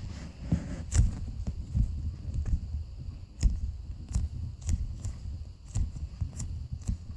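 Handling noise from a foam squishy toy being turned over in the hands close to the microphone: a low rumble with scattered sharp clicks and taps.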